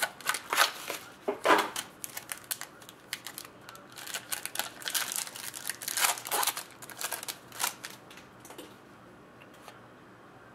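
Trading cards and their packaging being handled: dense rustling and crinkling with sharp clicks and snaps, dying down to a few faint ticks near the end.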